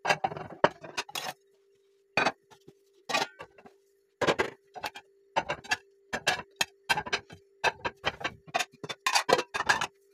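Dishes and cutlery clinking and knocking as they are handled in kitchen work, irregular sharp clicks coming every fraction of a second, over a faint steady hum.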